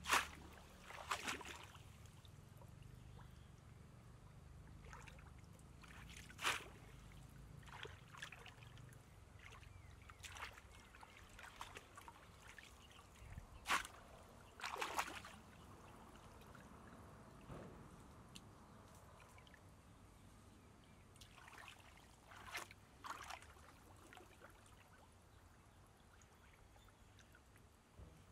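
Shallow water splashing and sloshing as a woven bamboo plunge basket is pushed down into it and a person wades, fishing by hand. Faint, with sharp short splashes now and then, the loudest right at the start and about halfway through.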